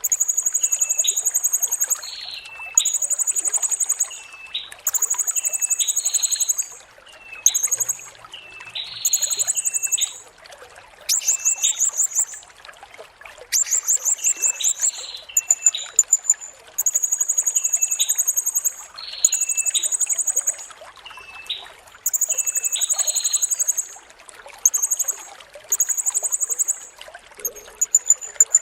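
Blue-crowned hanging parrot (serindit) singing: very high, rapid buzzing trills repeated one after another with short gaps, mixed with brief chirps, over a faint steady hiss.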